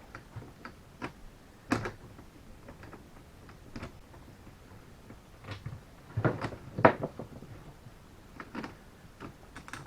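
Scattered clicks and metal knocks of a hand tool gripping and working the seized chuck of a DeWalt drill to force it to turn, with a louder cluster of knocks about six to seven seconds in.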